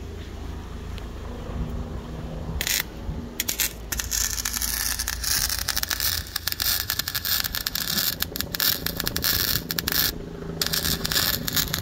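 Electric arc welding on a steel car exhaust pipe: the arc strikes in a few short stabs about two and a half seconds in, then crackles steadily, breaks off briefly near the end and starts again.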